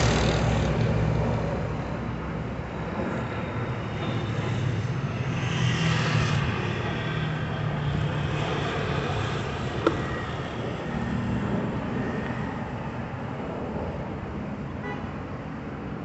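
Road traffic passing: vehicle engines and tyre noise. It is loudest at the start as a heavy truck goes by and then fades, and another vehicle swells past about five seconds in. A single sharp knock comes about ten seconds in.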